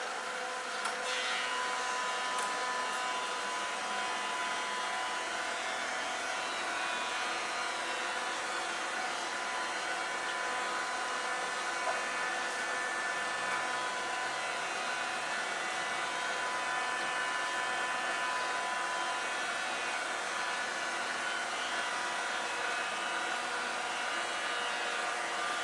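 Japanese railway level-crossing warning bell ringing continuously, its metallic tones steady over a rushing noise.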